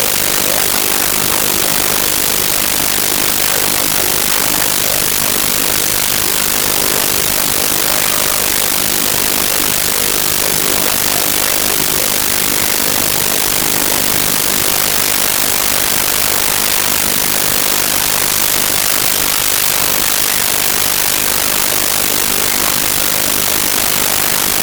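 Loud, steady hiss of static: a faulty audio track, with the noise drowning out any sound of the game.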